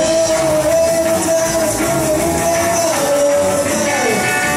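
Live rock-and-roll band playing, with electric guitars, bass and drum kit under one long held lead note that slides down near the end.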